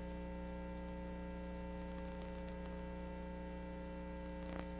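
Steady electrical mains hum on the audio line with no other sound, and one faint click near the end.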